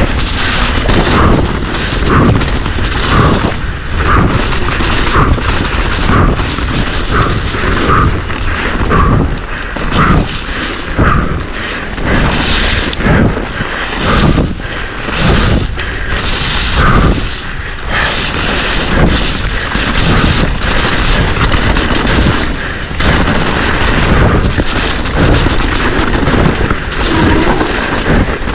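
Mountain bike descending a rough trail at race speed: a steady rush of wind and rolling noise on the microphone, broken by frequent knocks and rattles as the bike hits roots and rocks.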